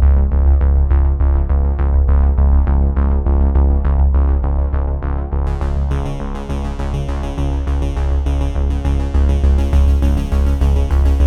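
Electronic background music with synthesizer and a steady beat over a heavy bass line; a brighter layer comes in about halfway through.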